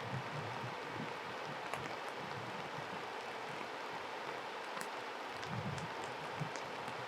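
Steady rush of a stream's flowing water, with a few faint high ticks from splashing.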